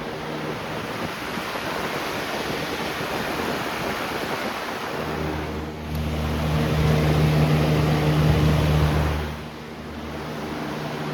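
Lasko Power Plus 20-inch box fan running on high: a loud, noisy rush of air over a steady motor hum, growing louder for a few seconds in the middle.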